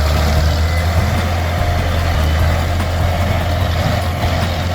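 Heavy vehicle engine running steadily with a deep, even low hum.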